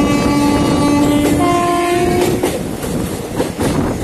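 Train horn sounding two held notes, a lower note and then a higher one, stopping a little past two seconds in. Under it runs the steady rumble and wheel clatter of the moving train.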